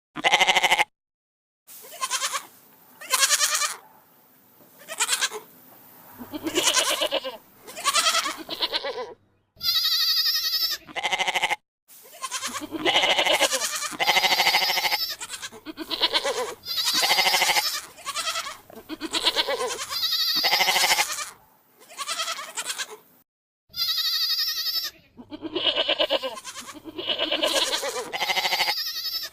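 A string of goat and ibex bleats edited one after another, some with sudden silent gaps between them; a couple of calls near the middle and near the end are thinner and higher-pitched than the rest.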